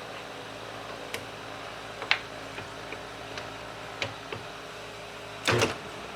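Small metal lathe being set up between cuts: scattered light clicks from handling its controls and tooling over a steady low hum, with a louder short clatter near the end.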